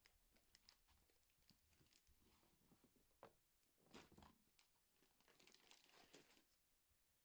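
Near silence with faint rustling and light knocks: a cat food bowl being handled and cats moving over a cardboard-covered floor. The loudest knock comes about four seconds in.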